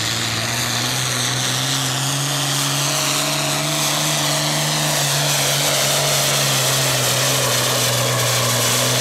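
International 1466 pulling tractor's turbocharged diesel running flat out under load as it drags a weight-transfer sled. A steady, heavy engine drone is topped by a high whine that slowly shifts in pitch.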